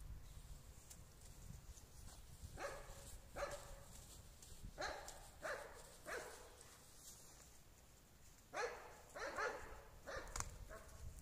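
A dog barking faintly in three short runs of two to four barks, with pauses between runs.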